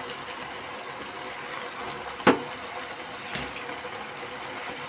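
Sweet rice in sugar syrup sizzling steadily in a nonstick pan over a high gas flame as the syrup cooks off. A wooden spatula knocks sharply against the pan about two seconds in, and more lightly about a second later.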